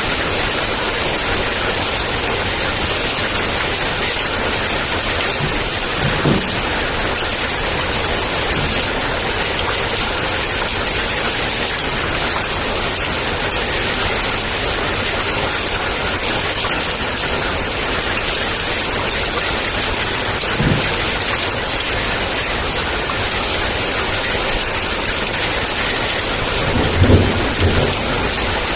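Heavy downpour of rain: a steady, dense hiss of rain on surfaces. A few brief low rumbles of thunder come through it, the strongest near the end.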